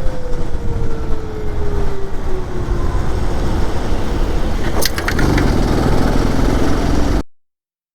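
Motorcycle on the move: the engine runs under heavy wind rumble on the microphone, and its note falls slowly over the first few seconds. A few sharp clicks come about five seconds in, and the sound cuts off suddenly near the end.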